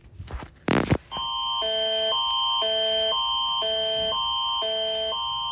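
Canada's Alert Ready emergency alert tone (the Canadian Alerting Attention Signal): a steady high tone over two chords, a higher and a lower one, that alternate every half second. It starts just after a brief loud burst of noise about a second in.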